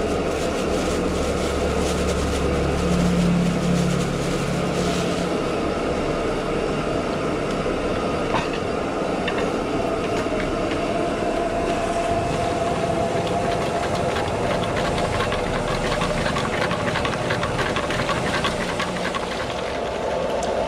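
Steady mechanical running noise, like a motor or machine, with a low hum that fades out about five seconds in and a higher steady whine coming in about halfway through.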